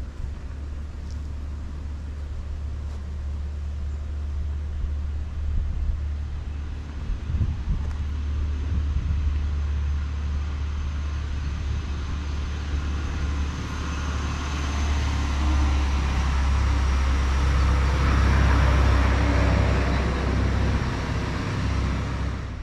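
Engine rumble of a passing vehicle, building slowly to its loudest near the end and then easing off, over a steady deep rumble.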